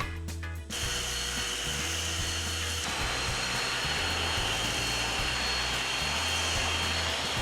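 A Sun Joe SWD12000 wet/dry shop vacuum switches on under a second in and runs steadily: a rush of air with a steady high whine, growing fuller about three seconds in.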